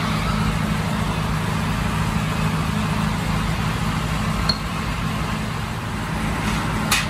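A machine running with a steady low hum, with a small click about four and a half seconds in and a sharp tap near the end.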